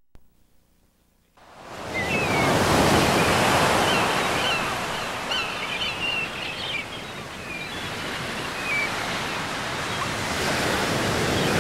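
Ocean waves and surf fading in after a second or so of silence and running on steadily, with a few short high chirping calls over the wash.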